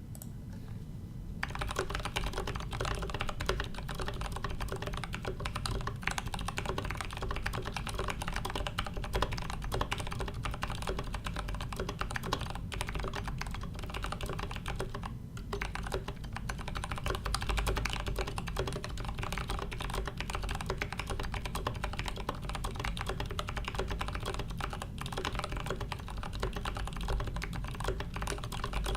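Continuous fast typing on a Leopold FC660M mechanical keyboard with lubed 67g Zealios tactile switches, steel plate and foam-dampened aluminium case: a dense run of muted keystroke clicks, starting about a second and a half in. A steady low hum lies under it.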